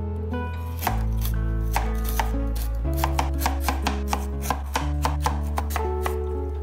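A cleaver slicing raw lotus root into rounds on a cutting board: quick, even knife strokes, about four a second, starting about a second in, over background music.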